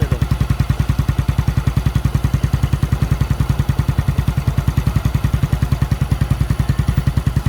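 Suzuki Smash single-cylinder four-stroke engine idling steadily with an even, rapid putter. The mechanic suspects its vacuum hose has gone soft.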